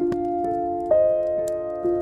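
Slow, soft piano music, with new notes struck about once a second, over the faint crackle of a burning wood fire.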